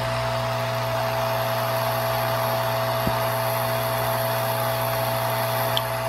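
Hot air rework station running steadily: a constant fan whoosh over a low electrical hum, with a faint tick about halfway through.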